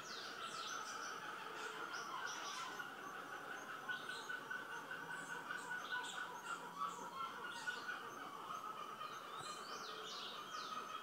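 Several birds chirping and calling in the tree canopy, many short overlapping calls, over a steady high drone.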